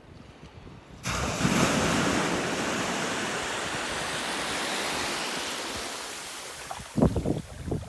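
Atlantic surf: a wave breaks about a second in and its hissing wash slowly fades over several seconds. Wind buffets the microphone near the end.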